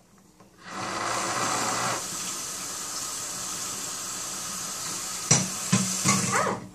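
Kitchen tap turned on, water running steadily into the sink, with a few clunks near the end.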